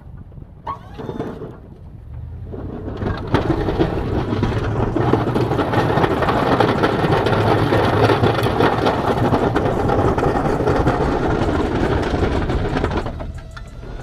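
Plow truck's engine working under load while its DXT V-plow blade pushes and scrapes snow. The noise swells in about two seconds in, holds steady, and drops away near the end as the push finishes.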